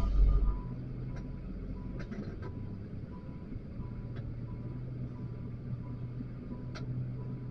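XCMG wheel loader's diesel engine running steadily, heard from the operator's cab, with a heavy thump right at the start and a few sharp clicks and knocks. A faint beep repeats at an even pace throughout.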